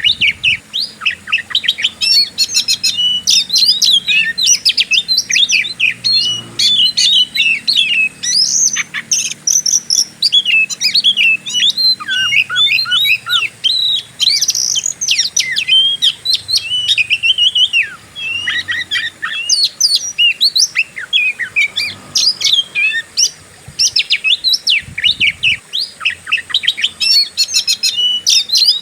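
Oriental magpie-robin (kacer) singing a fast, unbroken run of varied chirps, whistles and trills in the aggressive 'fighting' style.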